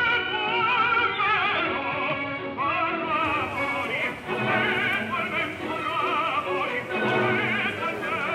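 Background music: a classical operatic voice singing sustained notes with a wide, regular vibrato.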